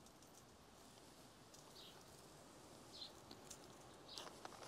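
Near silence, with a small bird chirping faintly three times, about a second apart.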